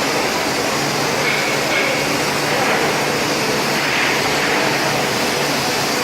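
Fiber laser CNC cutting machine cutting 4 mm carbon steel: a steady, loud rushing hiss with a low hum underneath.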